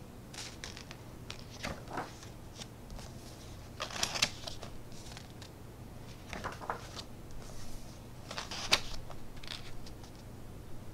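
Pages of a hardback cookbook being turned by hand: several short paper swishes and rustles, the loudest about four and about eight and a half seconds in.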